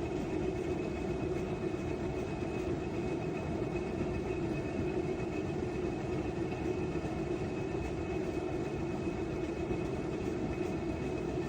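Top-loading washing machine running with a steady, even hum and low rumble and no breaks.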